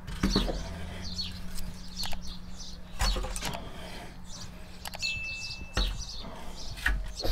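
Small birds chirping with repeated short, falling calls, while pieces of firewood are set down in a brick oven with a few dull knocks. A low steady hum runs underneath.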